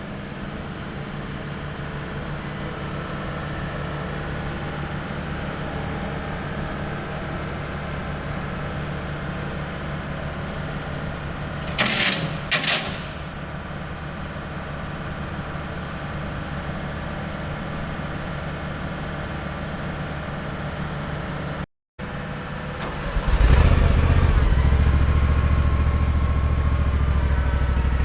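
Skid steer engine running steadily, with two short loud bursts of noise about twelve seconds in. After a brief break in the sound, a louder, deeper engine note rises and carries on.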